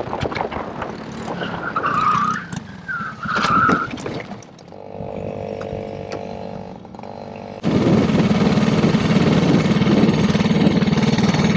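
Racing go-kart engine running, with two short tyre squeals about two and three and a half seconds in as the kart slides off the track onto the grass. The engine then drops to a low, quieter sound while the kart sits stopped, and picks up suddenly and loudly about two-thirds of the way through as the kart pulls away again.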